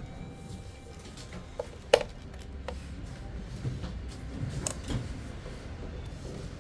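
Scattered clicks and knocks of the plastic parts of a Bluetooth speaker being handled and fitted together, with one sharp knock about two seconds in, over a low steady hum.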